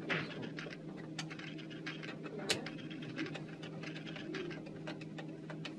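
Screwdriver driving M6 bolts into a metal instrument pod: scattered light metallic clicks and scrapes, with one sharper click about two and a half seconds in, over a steady low hum.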